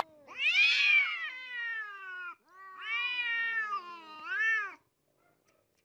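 Domestic cats yowling at each other in a standoff: two long, drawn-out yowls that waver up and down in pitch, breaking off about a second before the end.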